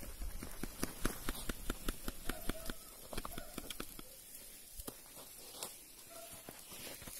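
Grill fire crackling under skewered shashlik: irregular sharp pops and snaps, busiest in the first few seconds, then thinning out over a faint hiss.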